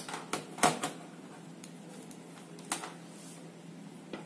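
Sharp plastic clicks and taps from a multimeter and its test probes being handled against a circuit board, several in the first second and a few more spread out later. A faint steady low hum runs underneath.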